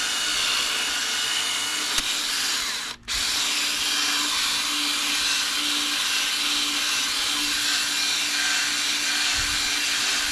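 Cordless drill spinning a foam polishing ball against a plastic headlight lens, buffing it with polishing compound: a steady whir that cuts out briefly about three seconds in.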